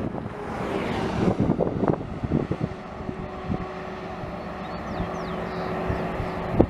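A coach bus driving past close by: road and engine noise swells over the first second or two, then runs on steadily with a low engine hum. A few short, high, falling chirps come near the end.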